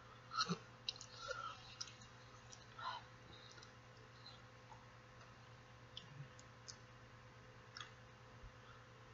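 Close-up eating sounds from someone biting and chewing a chicken taco: soft chewing with scattered wet mouth clicks and lip smacks, a few louder ones in the first three seconds.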